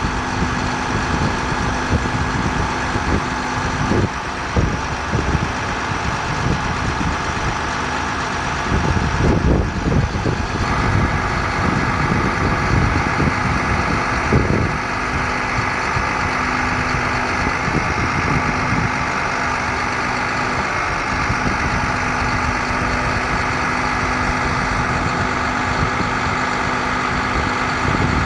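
Diesel engine of an International 4300 bucket truck idling steadily; about eleven seconds in, a higher hissing whine joins and holds.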